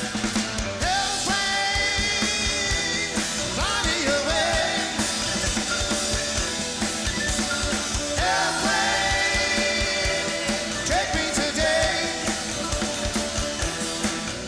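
Live rock band playing a passage with no sung words: a steady drum-kit beat under electric guitars, and a lead melody whose notes slide up into held tones every few seconds.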